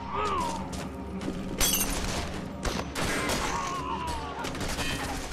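Rapid gunfire: a fusillade of rifle shots cracking in quick succession, the loudest about a second and a half in. A man cries out in pain as he is hit.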